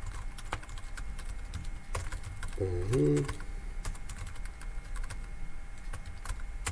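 Typing on a computer keyboard: a run of irregular keystroke clicks, with a short hum from a man's voice about three seconds in.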